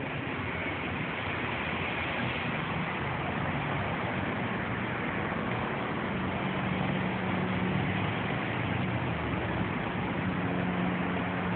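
A motor engine running steadily, a low hum that grows a little stronger in the second half, over a constant wash of street noise, heard through a phone's microphone.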